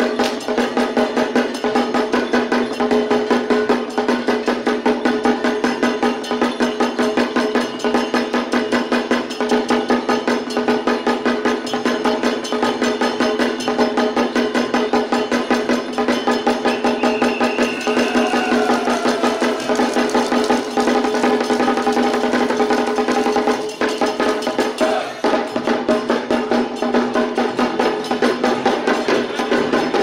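Lion-dance percussion band: a drum beaten in a fast, steady, even rhythm with metal percussion, over a steady ringing tone, with a short dip near the end.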